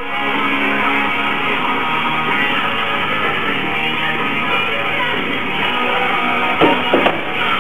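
Guitar music plays steadily.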